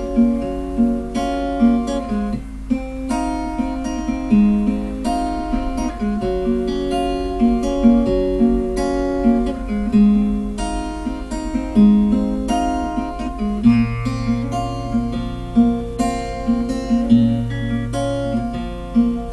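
Acoustic guitar picking a melodic instrumental introduction to a song. About two-thirds of the way through, low held bass notes join in under the picking.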